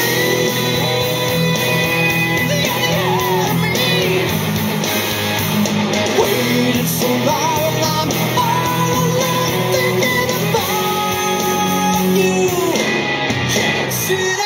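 A rock song with electric guitar and singing, played through a waterproof Bluetooth speaker built into a .50 cal ammo can with Kicker marine speakers. The music runs steadily at full volume.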